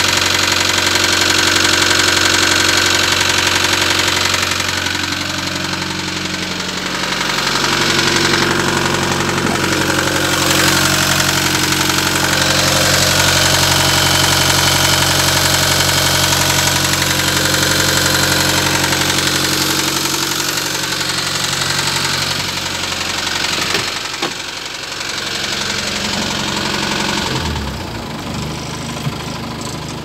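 Land Rover 200Tdi 2.5-litre four-cylinder turbo-diesel engine idling steadily at tick-over. The owner is hunting a knock that he says is definitely engine related but cannot place, and that he says hardly shows at tick-over.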